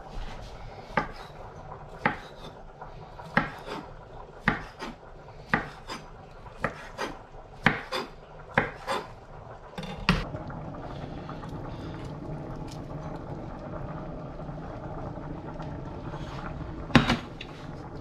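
Chef's knife chopping cooked crab and lobster meat on a wooden chopping board: a dozen or so sharp, irregular knocks over about ten seconds. After that a steady low hum, with one loud knock near the end.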